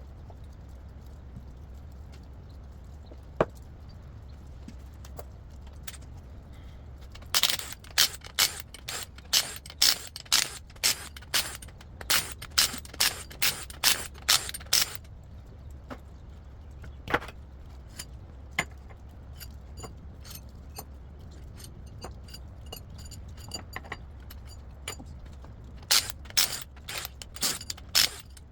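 Hand tools working metal while a rotary engine is taken apart: a run of sharp metallic clicks at about two a second for several seconds, a few scattered clicks, then another short run near the end, over a steady low hum.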